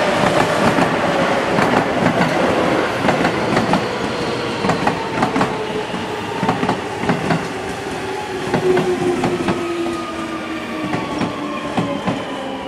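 Seibu 6000-series electric train slowing down: the whine of its traction motors falls steadily in pitch while its wheels clack over rail joints.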